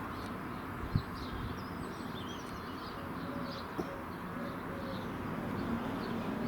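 Small birds chirping and twittering in short wavy calls over a steady low rumble of background noise, with a sharp knock about a second in.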